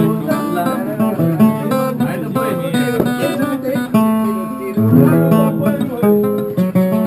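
Acoustic guitar strummed in steady chords.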